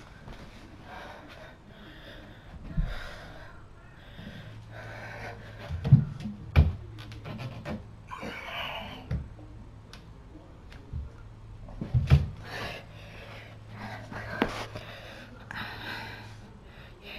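Heavy panting breaths from someone doing pull-ups, with several sharp knocks and thumps from a doorway pull-up bar and the body on it, the loudest about six seconds in and again about twelve seconds in.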